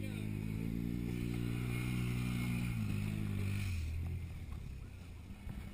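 Off-road vehicle engine revving up, held at steady high revs for about three seconds, then dropping back and fading.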